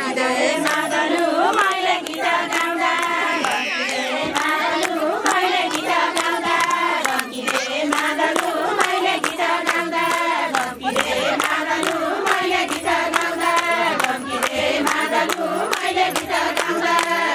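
A group of women singing a Nepali ratyauli folk song together, with steady rhythmic hand clapping keeping the beat.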